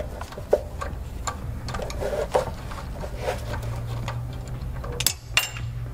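Ratchet clicking as a 10 mm socket on an extension spins out the loosened nut of an A/C compressor hose fitting, with irregular clicks and a few sharper metal knocks near the end, over a steady low hum.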